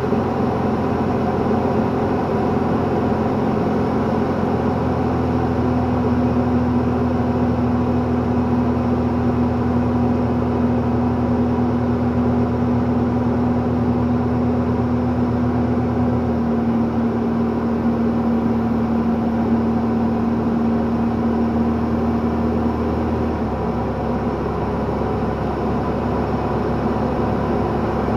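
Light sport airplane's piston engine and propeller running steadily during a climb, heard from inside the cockpit as a loud, even drone. The engine note drops slightly about 16 seconds in and changes again around 23 seconds.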